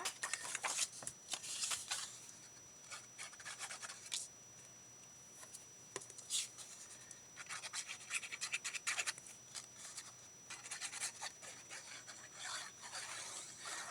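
Paper being handled and rubbed while a piece is glued to the back of another: bursts of quick scratchy rubbing strokes with paper rustling in between, quieter for a few seconds in the middle.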